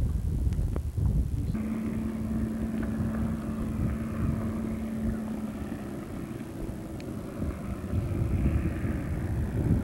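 Boat outboard motor running at a distance, a steady hum that rises in pitch about halfway through, with wind rumbling on the camcorder microphone.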